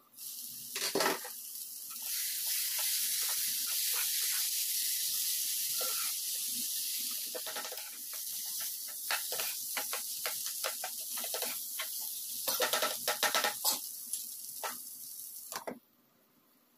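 Bitter gourd masala sizzling in a hot non-stick pan with the lid off, with a spatula scraping and stirring through it in quick strokes; the sizzle cuts off suddenly near the end.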